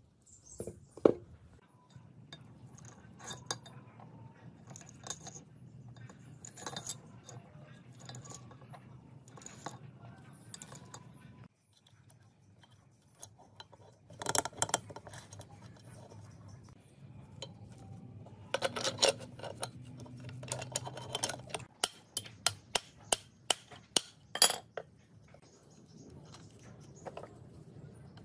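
Steel gears, a shaft and small parts of an antique lathe's gearbox clinking and knocking against each other and the metal housing as they are fitted by hand: a string of separate light metal taps and clicks, thickest about two-thirds of the way through.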